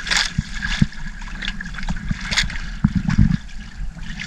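Water splashing and dripping off a wet gill net as it is hauled over the side of a small boat, with a few short washes of water and scattered low knocks, the thickest cluster about three seconds in.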